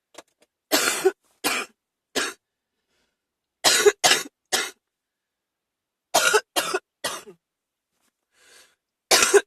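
A sick person coughing in fits, each a run of about three coughs, coming every two to three seconds. This is the congested coughing of someone ill on waking.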